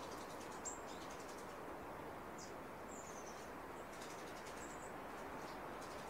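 Small songbird giving about five short, thin, very high calls, spaced out over a few seconds, one of them a short falling note. Underneath is a steady background hiss.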